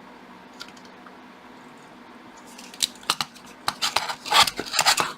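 Metal tools clicking and scraping on a circuit board as a small capacitor is worked loose during desoldering. The first half is quiet; a quick run of sharp clicks and scrapes starts about two and a half seconds in and grows louder toward the end.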